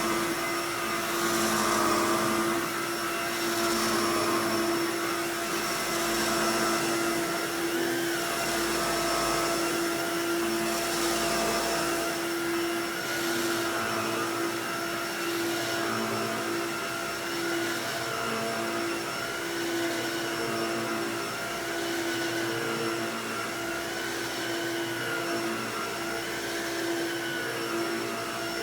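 Aerus Electrolux Epic upright vacuum cleaner running with its brush roll on, a steady motor whine with a slightly wavering pitch and recurring swells of airflow noise as it is moved.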